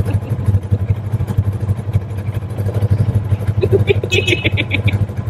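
A four-wheel-drive vehicle's engine running with a steady, fast-pulsing low rumble. A small, high-pitched horn toots in a quick string of short beeps about four seconds in.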